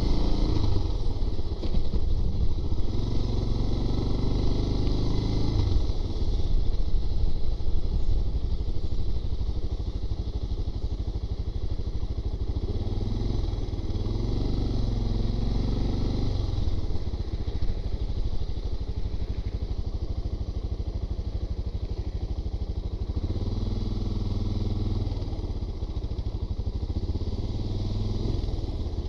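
Suzuki DR650's single-cylinder four-stroke engine running at low road speed, its pitch rising and falling a few times as the throttle opens and closes.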